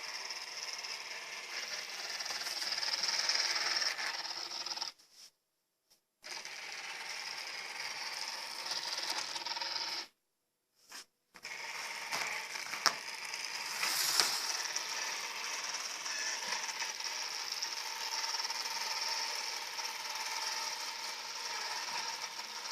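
Robot vacuum cleaner running over electrical cables, its motors and brushes whirring steadily with scattered clicks and rattles as it drags the wires and climbs over them. The sound cuts off suddenly twice for about a second.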